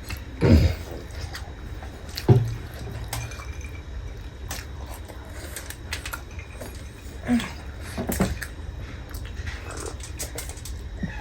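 Close-up eating sounds: scattered mouth clicks and smacks, with two louder dull knocks in the first couple of seconds, over a steady low hum.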